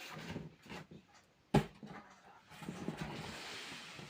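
Chainsaw packaging being handled: a sharp knock about one and a half seconds in, then a couple of seconds of steady rustling near the end.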